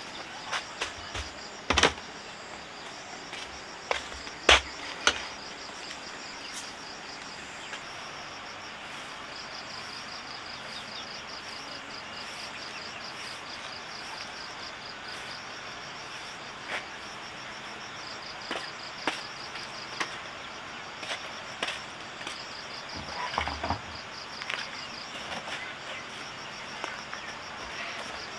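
Insects chirping in long pulsing trains that stop and start, with scattered sharp knocks and clicks, the loudest two in the first five seconds.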